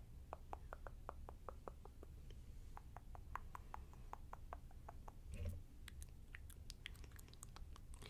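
Faint run of soft, close-miked clicks, about five a second at first, then more scattered and crisper, with one low soft thud about five and a half seconds in.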